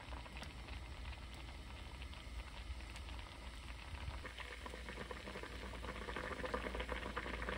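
Doenjang stew with wild chives bubbling at a boil in a pot, a dense crackle of small pops that grows louder over the second half.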